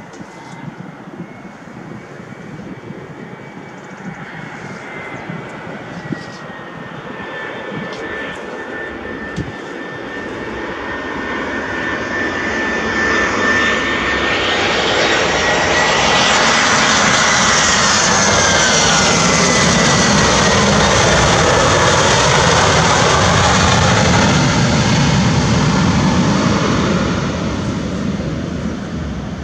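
Airbus A320-214's CFM56 jet engines on landing: a whine and engine noise that grow steadily louder as the airliner approaches, with the whine's pitch dropping as it passes. Loud steady engine noise follows as it rolls out on the runway, fading near the end.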